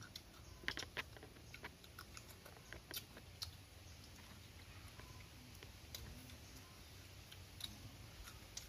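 Faint eating sounds from people eating fish curry by hand: scattered clicks and smacks of mouths and fingers, with light taps on the bowls. They are densest in the first few seconds and thin out after that.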